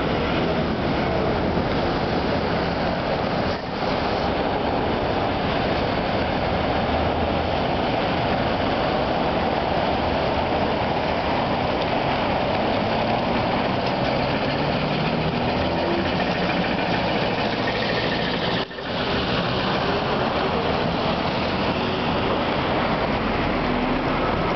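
Steady city street traffic noise, with a faint rising electric motor whine in the last several seconds as a vehicle gathers speed.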